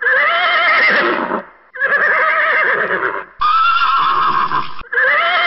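A horse neighing: three whinnies in a row, each about a second and a half long, with a shaky, wavering pitch, and a fourth starting just before the end.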